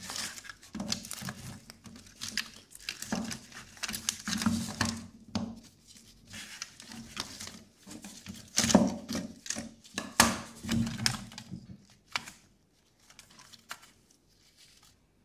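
Gloved hands handling and pulling apart the plastic housing and circuit boards of an old portable TV: rustling, clicks and knocks, with two louder knocks about nine and ten seconds in, stopping about twelve seconds in apart from a few faint ticks.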